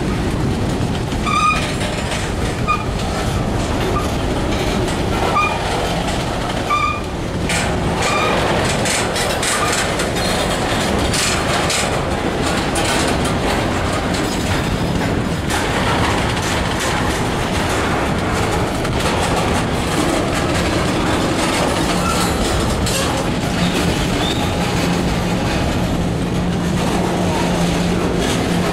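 Freight train cars (covered hoppers, tank cars, steel coil cars) rolling past close by: a steady rumble of steel wheels on rail with clicking over the rail joints.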